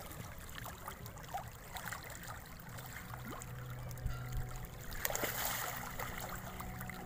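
Water splashing and sloshing as a dense crowd of catfish churns at the surface, with many small splashes and a louder splash about five seconds in.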